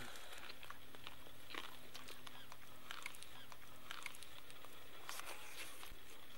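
Faint eating sounds: roast chicken meat being torn apart by hand and chewed, heard as scattered small crackles and smacks.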